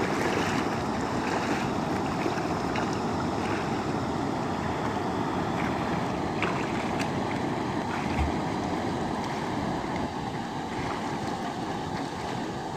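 Steady rushing noise of a river running over a shallow rapid, mixed with wind on the microphone, and a few faint splashes from wading in the water.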